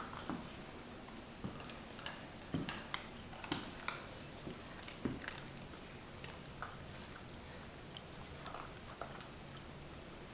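Rough collie puppies eating from shared food bowls: irregular chewing, crunching and small clicks, busiest in the first half and sparser later.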